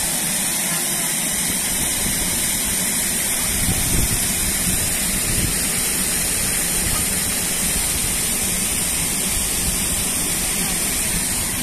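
Shallow stream running fast over rocks: a steady hiss of rushing water, with a low rumble joining about three and a half seconds in.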